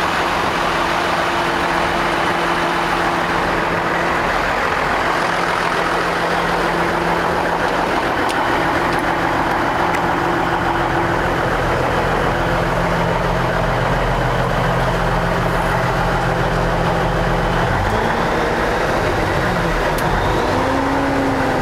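1994 Ford LA9000 truck tractor's diesel engine idling steadily. Near the end a tone wavers up and down a few times.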